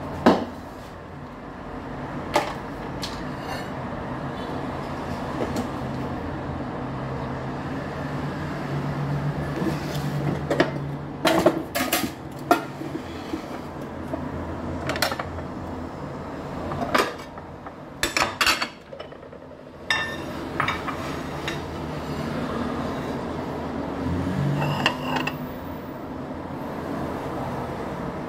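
Kitchen clatter: dishes and utensils clinking and knocking now and then, in small quick clusters a little before the middle and again about two-thirds through, over a steady background hum.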